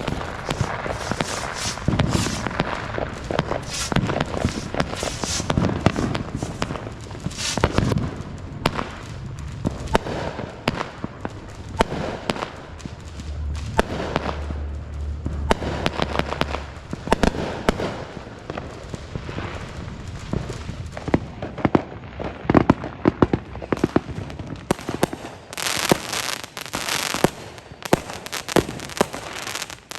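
Consumer fireworks and firecrackers set off by hand: a steady run of sharp pops and crackles.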